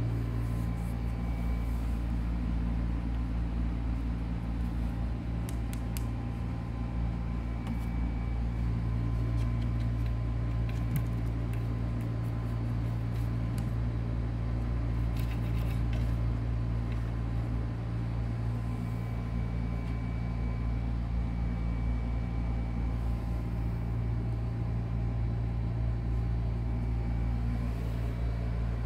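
Steady low machine hum that holds an even level throughout, with a few faint ticks scattered through it.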